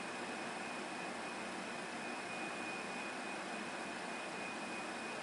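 Steady, even hiss of background noise with a faint, constant high-pitched tone running through it.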